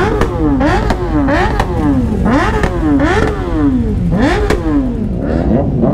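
Sport motorcycle engine revved again and again, its pitch climbing and dropping in quick succession.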